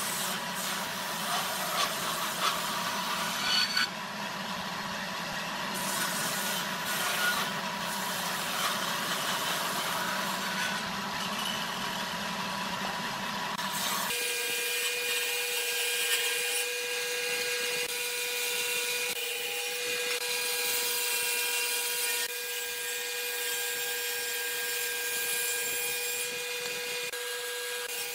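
Table saw running and cutting into a small wooden block. About halfway through, the sound changes abruptly to a steadier whine with a clear steady pitch.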